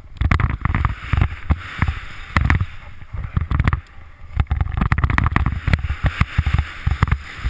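Wind buffeting the microphone of a skier's body-mounted camera during a fast downhill run, in irregular low gusts, mixed with the hiss and scrape of skis on snow.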